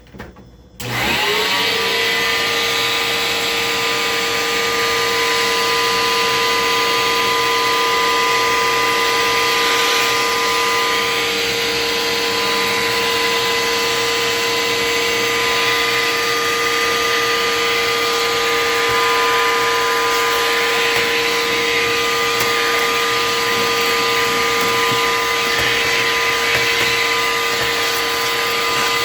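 Vacuum cleaner switched on about a second in, its motor spinning up to a steady whine and running continuously. It is sucking dust and clothes-dryer lint out of a refrigerator's clogged compressor-compartment vents.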